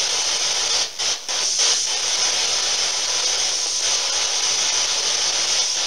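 Spirit box sweeping through radio stations: a steady rush of static with a few brief dropouts about one to two seconds in, as the sweep jumps between channels.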